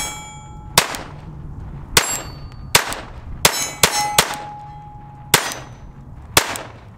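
Eight shots from a Ruger LCP II .22 LR pocket pistol, sharp cracks at an uneven pace of about one a second, with a quicker run of three near the middle. A metallic ring hangs on after some of the shots.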